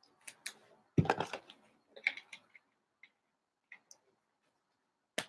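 Trading cards and foil card-pack wrappers being handled: scattered light clicks and rustles, with a louder rustle about a second in and a sharp click near the end.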